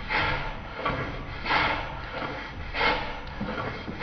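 Small hand plane shaving the edge of a wooden frame in regular strokes, one about every second and a half, each a short hiss as the blade lifts a thin shaving.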